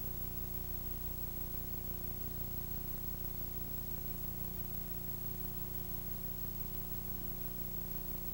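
Steady hiss with a low, even electrical hum and no other event: the background noise of a copy dubbed several generations down on VHS tape.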